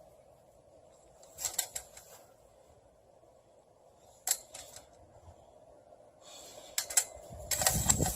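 A few sharp clicks, then near the end a steady hiss of water as the step-on dog water fountain starts spraying.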